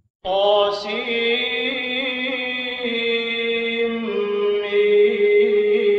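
A man chanting Quran recitation (tajwid) in long, drawn-out held notes that step in pitch a few times. A brief gap of silence comes at the very start.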